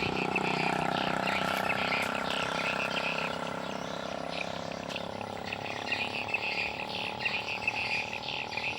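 Frogs calling in quick repeated croaks, with a steady motor hum fading away over the first few seconds.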